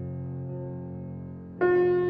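Instrumental background music of sustained keyboard chords, with a new, louder chord coming in sharply about three-quarters of the way through.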